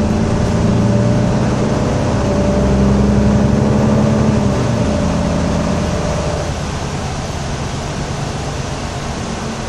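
Mercedes-Benz Conecto II city bus's diesel engine heard from inside the cabin, pulling steadily under load, then easing off about five seconds in as its note fades and the cabin noise drops a little.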